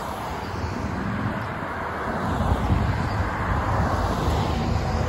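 Road traffic on a multi-lane street: cars driving past with steady tyre and engine noise, a little louder from about two seconds in.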